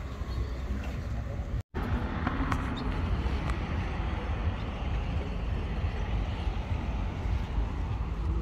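Steady low rumbling outdoor background noise at a roadside, broken by a brief total dropout about one and a half seconds in.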